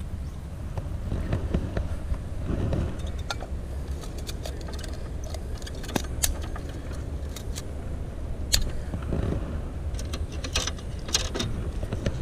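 Scattered small clicks and light metal clinks of painting gear being handled, among them a metal brush-washer pot, over a steady low rumble.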